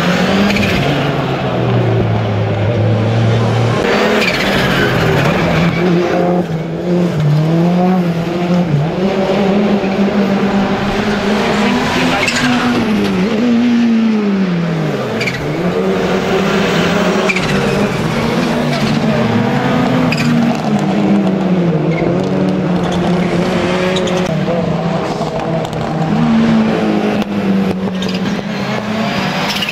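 Rallycross Super Car engines revving hard through their gears, pitch repeatedly climbing and dropping as the cars accelerate and brake for corners, with tyres squealing as they slide.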